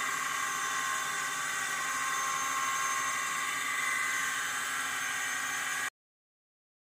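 CNC router spindle with a 6 mm flat endmill milling 304 stainless steel on a contour pass that radiuses the edge: a steady whine with several high tones over cutting noise. It cuts off abruptly about six seconds in.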